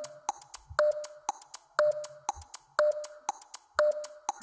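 Countdown-timer sound effect: sharp clock-like ticks about twice a second, with a short beep on each second as the count runs down to zero.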